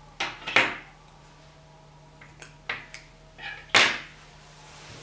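Scissors snipping cotton macrame cord and being handled on a tabletop: a handful of short, sharp snips and taps at irregular intervals, two close together near the start and a louder one near the end.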